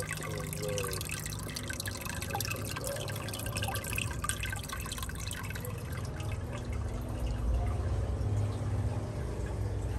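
Water dripping and trickling into a fish tank or pool, many small splashes over a low steady hum.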